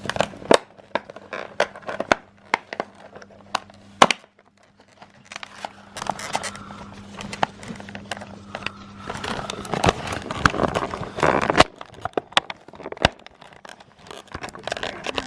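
Plastic-and-cardboard toy packaging being cut open with scissors and handled: irregular sharp clicks and snips with scraping, and crinkling plastic that grows busier in the second half.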